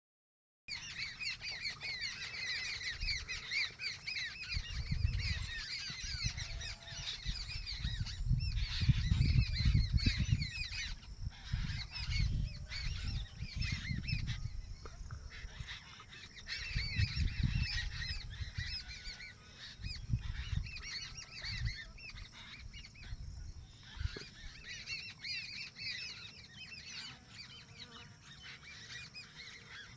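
A flock of birds calling continuously, many short overlapping calls, thickest in the first several seconds and again near the end. Low rumbles on the microphone come and go, loudest about nine seconds in.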